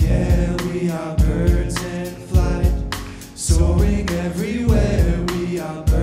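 Live band music: grand piano, upright acoustic bass and drum kit playing together, with a steady beat of heavy low drum hits and cymbal strokes, and voices singing without words over it.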